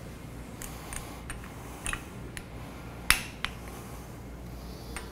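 Scattered sharp metallic clicks and clinks of a socket and torque wrench on flange bolt nuts during the first one-third torque pass. The sharpest click comes about three seconds in.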